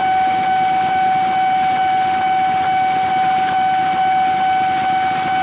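Railway level-crossing warning alarm sounding one steady, unbroken high tone, over the low rumble of a KAI diesel locomotive rolling slowly past.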